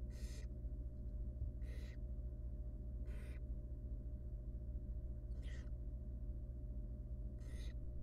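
Barn owl nestlings giving their hissing, snore-like begging calls, five short rasping hisses a second and a half to two seconds apart, while being fed a rodent. A steady low hum runs underneath.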